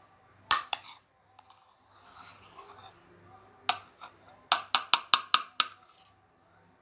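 Sharp hard taps and clicks of small objects being handled: two near the start, one in the middle, then a quick run of about seven just past the middle.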